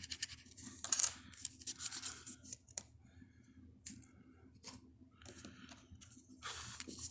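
A coin clinks sharply against a hard surface about a second in, followed by scattered light clicks, scrapes and paper handling, and a short stretch of coin scratching on a scratch-off lottery ticket near the end.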